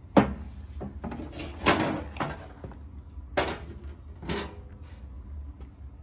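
Small hinged sheet-metal inner door on a Pyrotronics CP70 fire alarm control panel being pushed shut and handled: a sharp clack just after the start, then three more knocks over the next few seconds.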